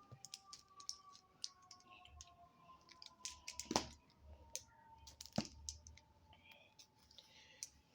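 Faint scattered clicks and light taps of small objects being handled, with two sharper clicks about four and five and a half seconds in.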